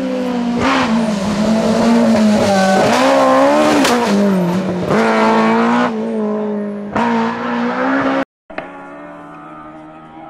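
Fiat 131 Abarth rally car's four-cylinder engine revving hard as it drives past. The pitch climbs and drops repeatedly with gear changes and lifts, with some tyre squeal. The sound cuts out briefly about eight seconds in, and a quieter, steady engine note follows.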